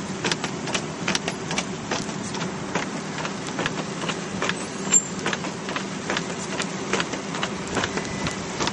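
A car creeping over an ice- and snow-covered road, heard from inside the cabin: a steady low engine hum with a stream of irregular crackling clicks, about a few a second, and one louder click about halfway through.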